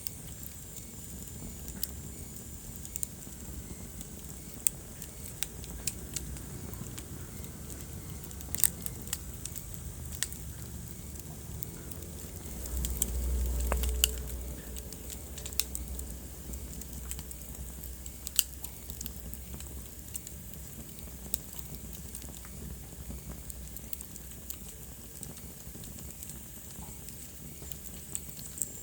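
Wood fire burning in a fireplace, crackling with scattered sharp pops over a low steady rumble. About halfway through, the low rumble swells louder for a couple of seconds.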